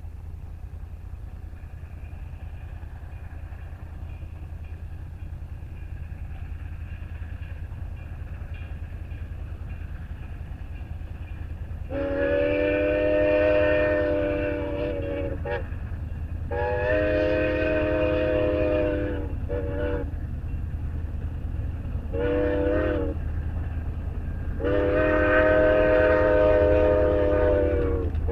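Steam whistle of Grand Canyon Railway's Mikado-type (2-8-2) locomotive 4960 sounding the grade-crossing signal, starting about 12 seconds in: long, long, short, long. Each blast is a chord of several tones, over a steady low rumble.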